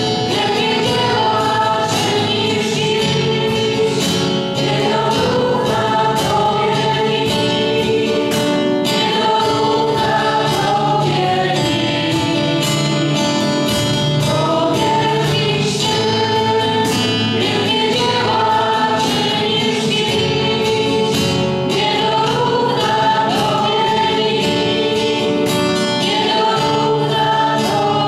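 Choir singing a Christian worship song with a steady beat.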